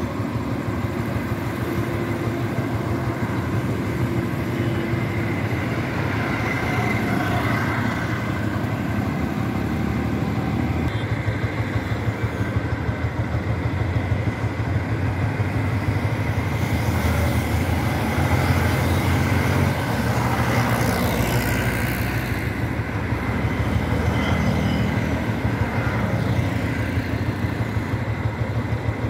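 Motorcycle running steadily at road speed, with a low engine drone under wind and tyre noise, and other traffic passing, swelling for a few seconds around the middle.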